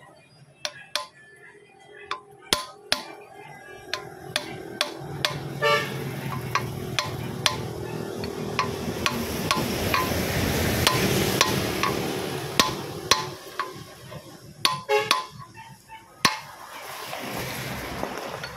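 Hammer striking a steel drift seated in a bore of an engine block: a long series of sharp, ringing metal taps, roughly two a second, driving a greased replacement water-jacket part into place. A broad rushing noise swells and fades behind the taps in the middle.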